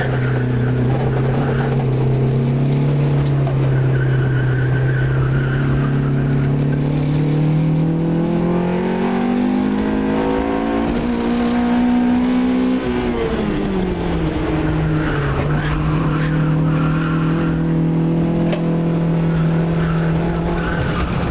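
Car engine heard from inside the cabin under steady throttle, its pitch climbing slowly for several seconds, then dropping sharply about two-thirds of the way through and holding steady after.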